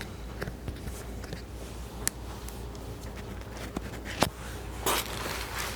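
A patient shifting position on a padded chiropractic treatment table: rustling of clothing and table cover, with a few sharp clicks or knocks. The loudest click comes about four seconds in, and a burst of rustling follows about a second later.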